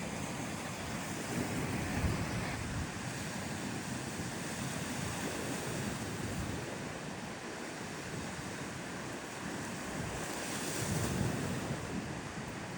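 Surf washing onto a beach, with wind buffeting the microphone. The noise is steady, swelling louder about two seconds in and again near the end.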